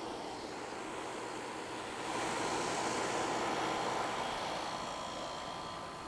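A passing vehicle's rushing noise over a steady outdoor hum, swelling about two seconds in and fading away by the end.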